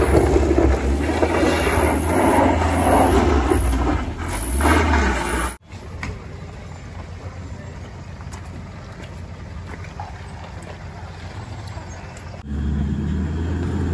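Engine of a small box truck revving hard under load as it climbs a steep, loose dirt slope. After about five and a half seconds it cuts off abruptly to a much quieter outdoor background, and a loud engine rumble returns shortly before the end.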